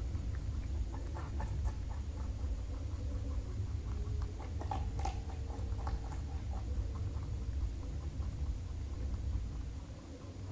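Rabbits chewing raw vegetables: many small, irregular crunching clicks, over a steady low hum.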